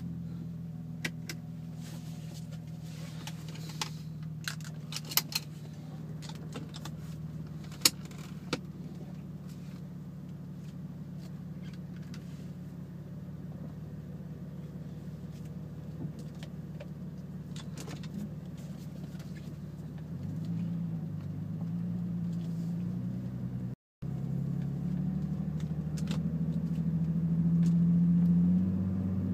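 BMW E39 520i's M54 inline-six idling steadily through straight-piped stainless exhaust with two resonators, with a few sharp clicks in the first several seconds. About twenty seconds in, the note begins to change as the car moves off, and near the end it rises as the car accelerates.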